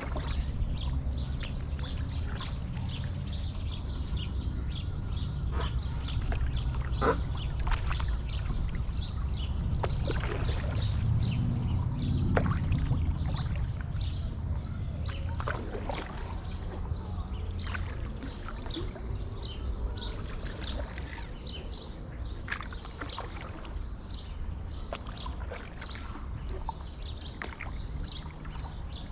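Birds chirping and calling in quick, repeated short notes over a steady low rumble.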